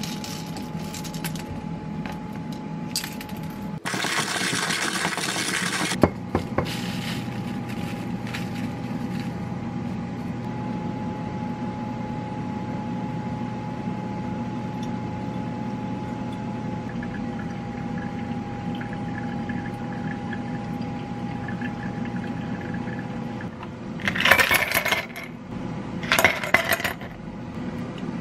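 Coffee beans rattling into a wooden hand coffee grinder, with a short rush of noise a few seconds in. After that comes a long stretch of quieter pouring over a steady low hum, and near the end two loud clatters of ice cubes dropping into a glass.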